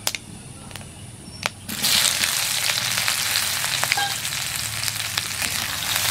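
Chopped red onion dropped into hot mustard oil in an aluminium kadai, sizzling loudly and steadily from about a second and a half in, and stirred with a metal spatula near the end. Before the onion goes in, a couple of sharp clicks.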